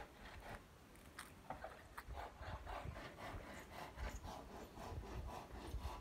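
Hand saw cutting wood in quick, even strokes, about three a second, heard faintly.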